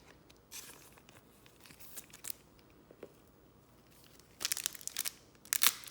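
A foil trading-card pack wrapper being torn open and crinkled: faint rustles at first, then loud crackling tearing starting about four and a half seconds in.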